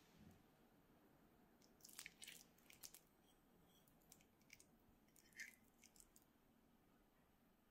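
Faint soft squishing and small clicks as a metal spoon digs into a mayonnaise-dressed potato salad and scrapes against the porcelain plate, in two short clusters about two and five seconds in.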